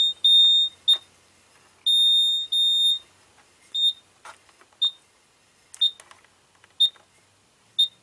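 TIF 4000A electronic sight glass beeping: a high-pitched tone in long broken beeps for about the first three seconds, then short beeps about once a second, the once-a-second beep it gives for no bubbles, as its two clamp-on sensors are held together.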